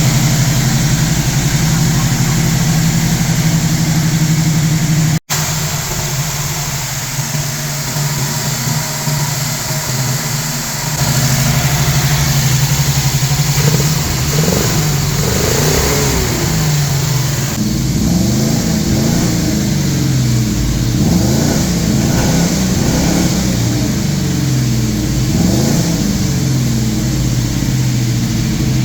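Holden V8 engine running with a vacuum leak during tuning: a steady note at first, then from about eleven seconds in its pitch keeps rising and falling as it is revved and hunts. The sound cuts out briefly about five seconds in.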